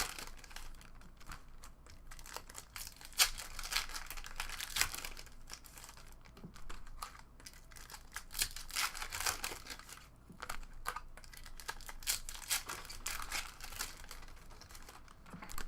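Trading-card pack wrappers crinkling and tearing as packs of hockey cards are opened and handled, an irregular stream of crackles throughout.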